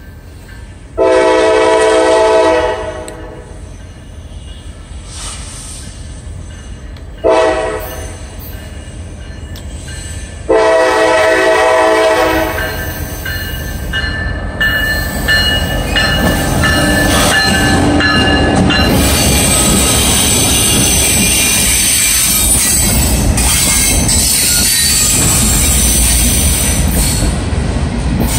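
CSX diesel freight locomotives sounding the horn at a road crossing: a long blast, a short one, then another long one. The two locomotives then rumble past, followed by loaded freight cars rolling by with wheels clattering and squealing high on the rails.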